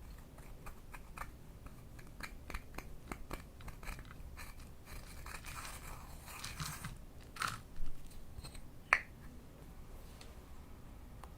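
Slime being handled: scattered small sticky clicks and scratchy crackles, with two louder pops around eight and nine seconds in.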